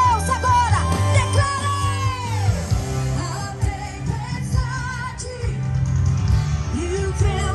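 Live worship band of drums, bass and electric guitar playing under a woman's lead vocal; she holds one long note that slides down and ends about two and a half seconds in, then sings shorter phrases.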